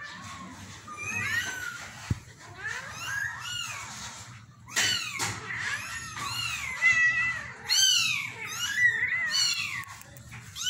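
A litter of young kittens meowing over and over, many short, high-pitched mews overlapping, with the calls coming thicker and louder from about five seconds in.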